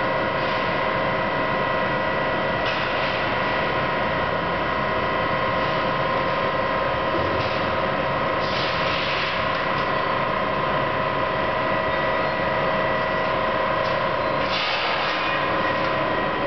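Hydraulic scissor-lift work platform running as it lowers: a steady machine hum with a constant whine that stops near the end.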